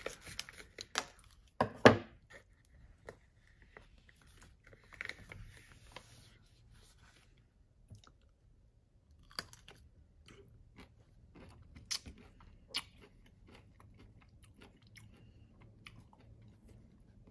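Scissors snip through a plastic pickle pouch and the pouch crinkles as the pickle is pulled out. Then come crunchy bites into a whole sour pickle, the loudest a little past the middle, followed by quieter wet chewing.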